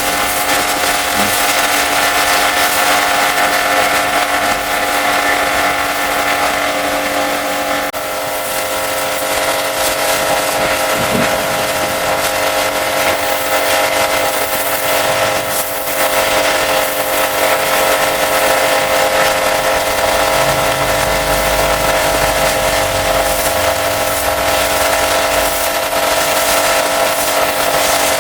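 High-pressure washer running steadily: a constant motor-and-pump whine under the hiss of the water jet.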